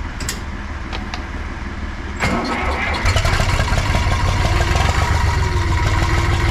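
Zetor tractor diesel engine being cranked about two seconds in and catching about a second later. It then settles into a steady, louder run, starting readily in the cold.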